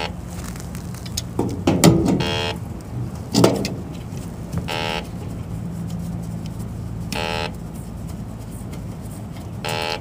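Electronic refrigerant leak detector beeping, one short electronic tone about every two and a half seconds, over the steady hum of the running air-conditioner condenser. Two louder knocks and rustles, about two and three and a half seconds in, as the service-valve cap is worked off.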